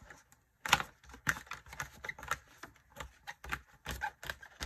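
Irregular light clicks and taps from hands working a discbound planner, a few a second.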